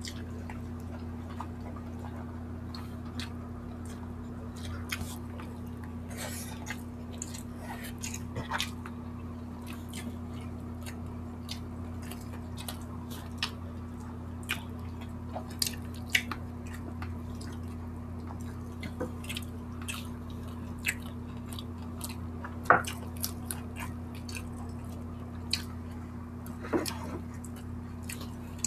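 Close-up eating sounds of two people eating saucy barbecued chicken by hand: wet chewing and lip smacks in scattered short clicks. A steady low hum runs underneath.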